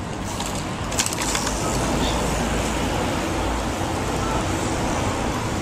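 Steady outdoor rumble and hiss like road traffic, swelling for a few seconds, with a few sharp clicks about a second in.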